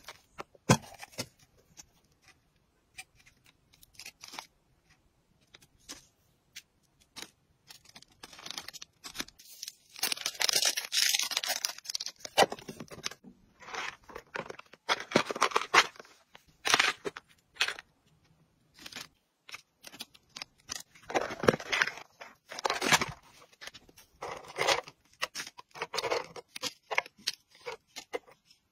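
Hands packing dry hamster snacks: plastic bags crinkling, plastic boxes and lids being handled with light clicks, and a spoon scooping dry pellets out of a clear plastic canister. Short irregular bursts of rustling and tapping, sparse at first and denser from about a third of the way in.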